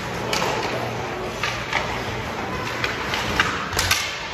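Ice hockey play in an arena: skates scraping the ice and several sharp clacks of sticks and puck, the loudest about three and a half seconds in, over a steady background hum.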